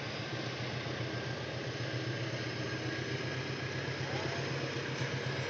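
An engine running steadily: a constant low hum under an even wash of noise.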